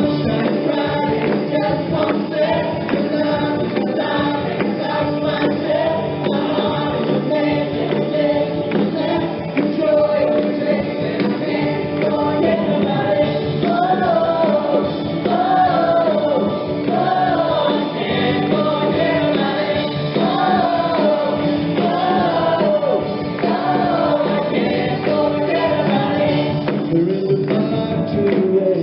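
Background music: an upbeat Christian worship song with singing voices and a tambourine.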